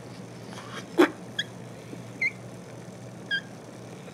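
Rubber balloon squeaking against the glass neck of an Erlenmeyer flask as it is blown into: three short, high squeaks, with a sharp click about a second in. The balloon hardly inflates, because the air trapped in the flask pushes back.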